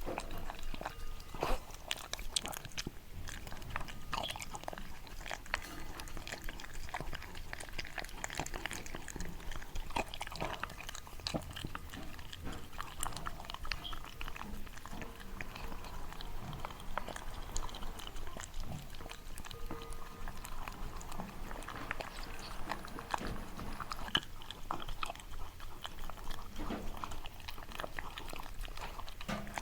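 A Shiba Inu chewing and crunching, a long run of small irregular crunchy clicks.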